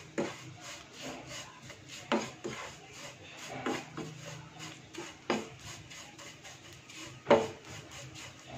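Wooden spatula scraping and pushing fine vermicelli around a non-stick frying pan as it roasts in ghee. The scrapes come at irregular intervals of about a second, and the loudest comes near the end.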